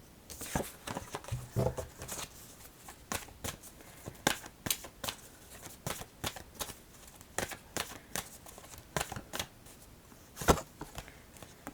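A deck of Goddess Oracle cards being shuffled by hand: irregular quick rustles and snaps of card stock, with one sharper slap about ten and a half seconds in.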